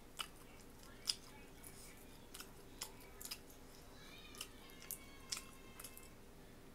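Faint, scattered crackles and snaps of a cooked shrimp's shell being peeled off by hand, the clicks coming irregularly every half second or so.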